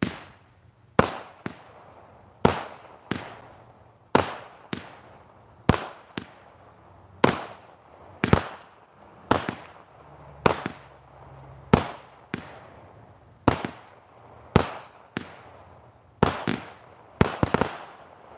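A 200 gram consumer firework cake firing shot after shot: a string of sharp bangs, each trailing off, roughly one to two a second, with a quick run of bangs near the end.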